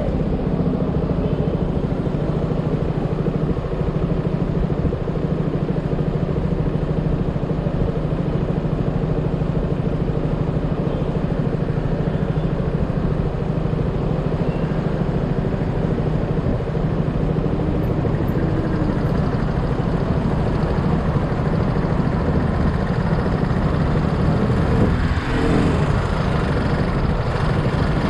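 Yamaha XMAX scooter's single-cylinder engine running at a steady pitch while riding, over a steady rush of noise. Near the end, other sounds briefly rise and fall.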